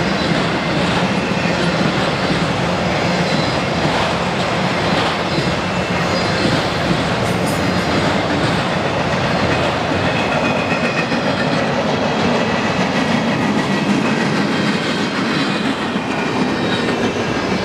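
Freight cars of a long manifest train rolling past on the rails: a steady rumble with the clatter of steel wheels on track.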